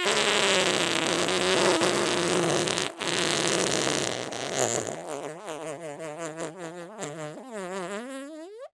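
Long comic fart sound effect: a loud, raspy blast for about three seconds, then a wobbling, squeaky stretch that rises in pitch and cuts off suddenly.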